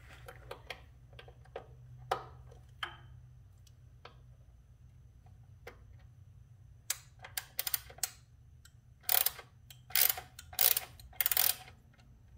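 Small hand ratchet clicking as it tightens the mounting nut of a motorcycle LED driving light: a few scattered clicks at first, then several short, loud bursts of rapid ratcheting clicks in the second half.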